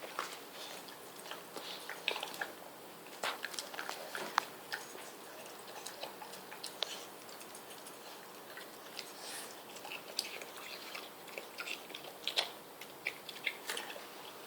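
A French Bulldog biting and chewing watermelon, with many irregular short sharp mouth sounds throughout.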